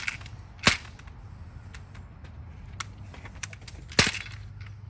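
Three sharp knocks on the wooden coop kit, two close together near the start and one about four seconds in, with light taps and clicks between, as a misaligned piece is knocked into place.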